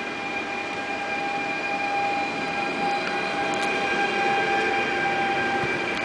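Stadler FLIRT electric multiple unit pulling out of the platform. Its electric drive gives a steady whine of several high tones over the rumble of the wheels, getting a little louder as it moves off.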